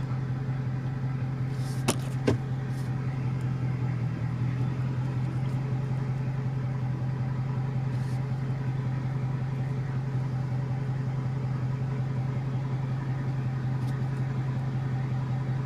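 2020 Dodge Charger Widebody's V8 idling steadily as the car creeps slowly in reverse. Two short clicks about two seconds in.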